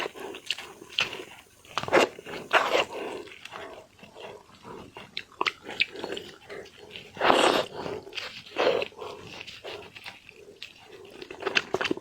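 Close-miked eating sounds of a person eating a peeled shrimp: wet smacking and slurping chews with small clicks, coming irregularly, and a longer, louder slurp about seven seconds in.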